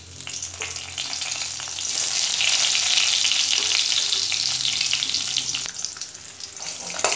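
Halved boiled eggs sizzling in hot mustard oil in a kadai, with a few light clicks. The sizzle grows louder about two seconds in and eases near the end.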